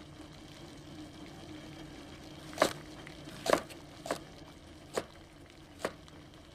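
Kitchen cooking sounds: a lidded pot simmering quietly on the stove, with five sharp, irregularly spaced knocks of a knife chopping on a cutting board, starting about two and a half seconds in.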